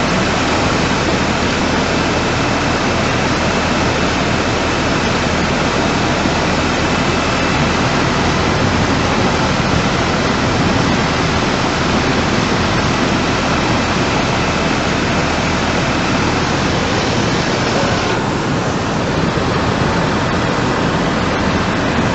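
Loud, steady rush of fast-flowing floodwater. About eighteen seconds in the hiss suddenly turns duller.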